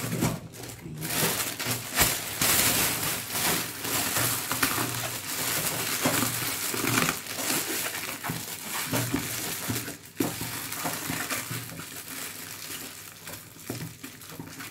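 Thin plastic bag crinkling and rustling as it is pulled over a lidded plastic tub, then twisted and knotted shut. It is busiest in the first two thirds and quieter near the end.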